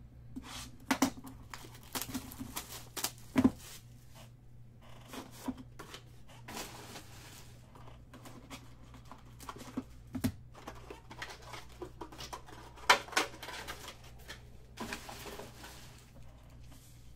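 Shrink wrap crinkling and tearing off a Panini Luminance football card box, then the cardboard lid opened and foil card packs handled: irregular rustles, taps and small snaps, the loudest snap late on.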